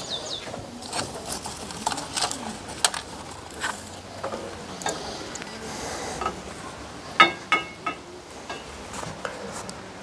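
Outdoor ambience: a bird's quick run of high chirps ends just after the start, followed by scattered light taps and clicks and a brief pitched call about seven seconds in.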